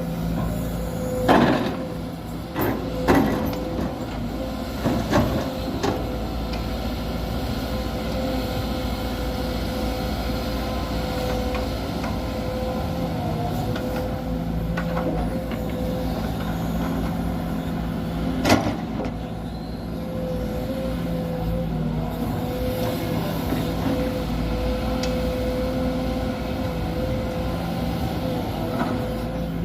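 Hydraulic excavators at work: diesel engines running steadily with a held tone, broken by sharp knocks several times in the first five seconds and once more, loudest, about 18 seconds in.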